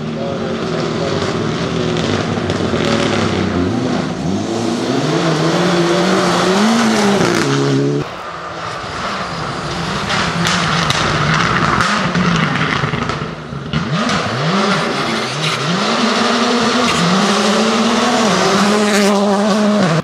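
Rally cars being driven flat out on a gravel stage, with engine revs climbing hard and dropping back at each gear change and lift. The sound cuts abruptly to another car about eight seconds in. From there several quick rev rises and drops lead into a long high-revving pull near the end.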